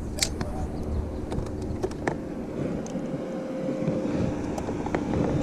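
A boat motor running steadily on the water, a low drone with a faint steady hum, with a few light clicks on top.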